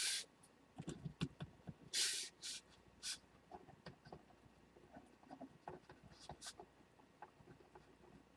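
Faint handling noises: scattered small clicks and a few short hissy rustles, mostly in the first three seconds.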